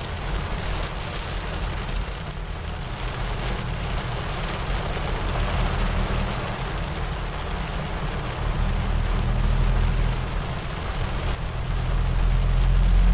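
Heavy rain falling on a moving car's windscreen and roof, heard from inside the cabin, over the car's steady low road and engine rumble.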